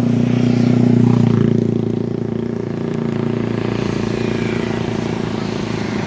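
Bus engine running close by, swelling to its loudest about a second in and then holding steady.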